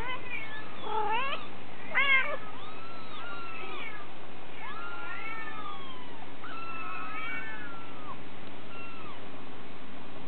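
Young kittens mewing: a string of short, high-pitched calls that rise and fall, loudest about two seconds in.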